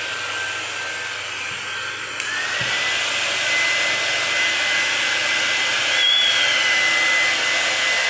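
Blow dryer running steadily, drying a wet kitten's fur, with a motor whine over the rush of air. About two seconds in the whine rises in pitch and holds, and the blowing gets a little louder.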